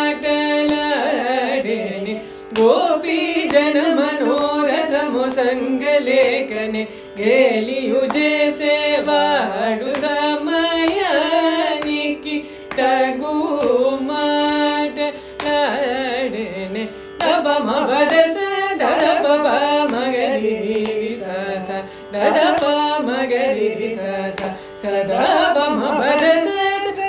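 Carnatic classical music in Aarabhi raga: a melody line full of sliding gamaka ornaments over a steady drone, with light percussion strokes keeping time.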